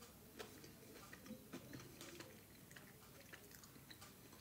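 Faint chewing with a few soft, irregular mouth clicks from a person eating a mouthful of food.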